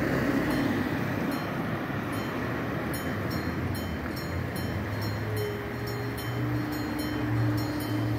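Level-crossing warning bell ringing in short repeated strokes over a steady low rumble of road traffic.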